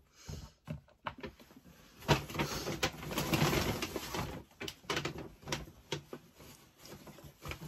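Shopping bag and clothing rustling and crinkling as a top is rummaged out of the bag. It is loudest for a couple of seconds starting about two seconds in, with scattered crackles before and after.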